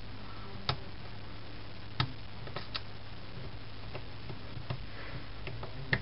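Small sharp clicks as the round snap-on antenna connectors are popped off a BlackBerry PlayBook's mainboard: a handful of ticks, the clearest about a second in and at two seconds, over a steady low hum.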